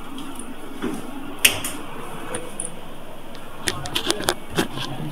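A steady hum of machinery, with one sharp click about a second and a half in and a quick run of clicks and taps near the end, as people pass through a door into a working cinema projector room.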